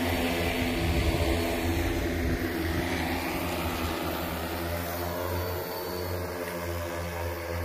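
Multirotor agricultural spray drone's propellers humming steadily in flight, a layered drone of even tones that gradually gets quieter.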